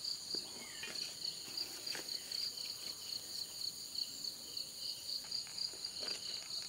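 Insects chirping steadily in a high-pitched, rapidly pulsing trill, with a couple of faint clicks.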